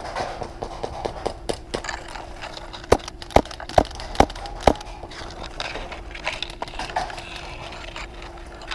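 Rustling and crunching, as of movement through dry undergrowth, with a run of five sharp cracks about half a second apart near the middle.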